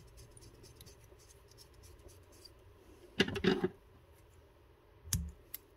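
Fly-tying thread being wrapped onto a hook shank from a bobbin: faint scratchy rubbing, then a short burst of louder handling noise about three seconds in and a single knock near the end.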